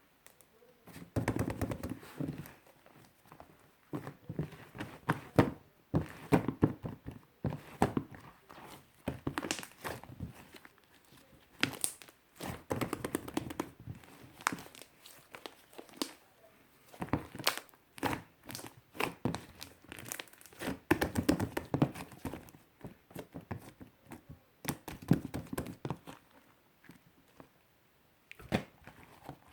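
Fluffy shaving-foam slime being squeezed, poked and stretched by hand, giving clusters of small crackling clicks and pops in repeated handfuls with short pauses between.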